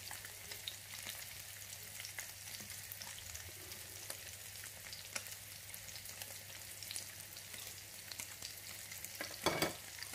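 Syrniki (cottage-cheese pancakes) frying in oil in a nonstick pan, slowly cooking through: a steady soft sizzle full of fine crackles over a low steady hum. A brief louder sound comes near the end.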